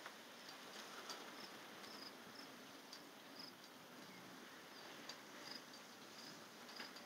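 Crickets chirping faintly: short, high chirps repeating every half second or so over a low hiss.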